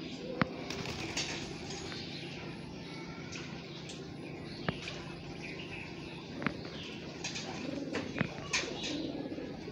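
Domestic pigeons cooing, mostly in the later part, with several sharp clicks scattered through, the loudest about half a second in, over a faint steady hum.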